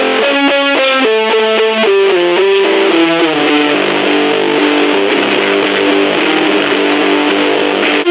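Distorted electric guitar played through an overdrive pedal into a small battery-powered Junkbox amp: a quick run of picked notes, then a chord left ringing from about three seconds in.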